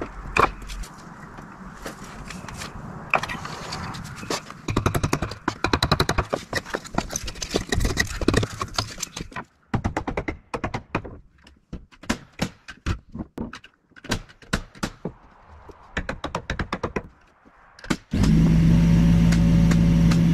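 Knocks, taps and scraping of hand work on wood and building materials, coming in uneven clusters. Near the end a power tool's motor starts suddenly and runs at a steady pitch.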